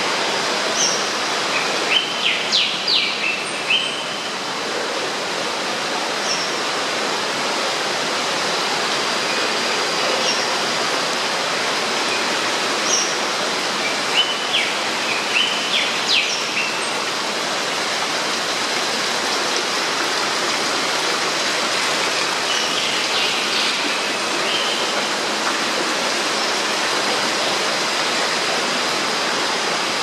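Steady rush of running water, with birds chirping in short bouts of quick high calls: one about two seconds in, another around the middle, and a softer one about three-quarters through.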